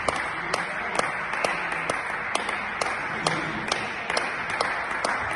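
Spectators applauding after a point in a table tennis match, a steady patter of hands with sharp, loud single claps standing out about two or three times a second.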